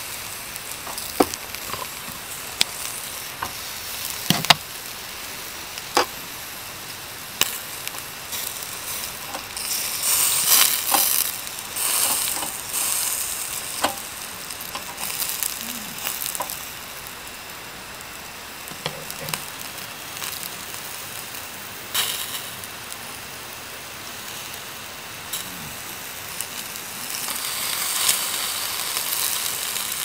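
Beef sirloin sizzling on a grill over a charcoal fire in a mini brazier, with sharp pops and crackles scattered through. The sizzle swells louder about a third of the way in and again near the end.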